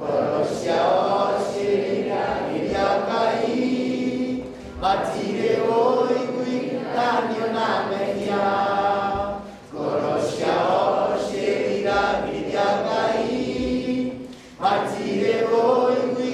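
A group of young people singing together, in phrases broken by short pauses about every five seconds.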